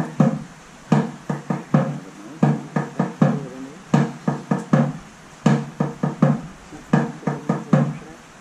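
Low-pitched, hollow percussion beats struck in quick uneven groups of two and three, about two to three beats a second, each with a short ringing note.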